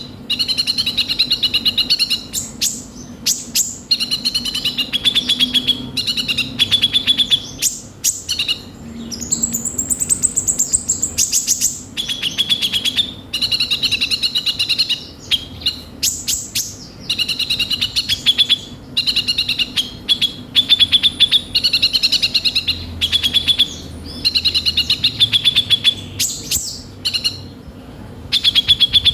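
A kolibri ninja sunbird singing a loud, harsh, rapid chattering song. It comes in phrases of a second or two with short pauses between, mixed with fast high clicking trills.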